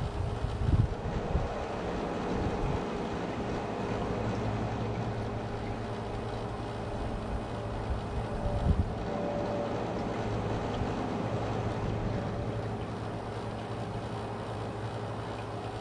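Wind gusting outdoors, buffeting the microphone with low thumps about a second in and again near nine seconds, over a steady low rumble.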